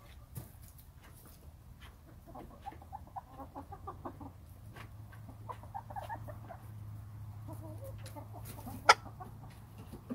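Backyard hens clucking in short runs of low notes, a couple of seconds in and again around six seconds. One sharp tap comes near the end.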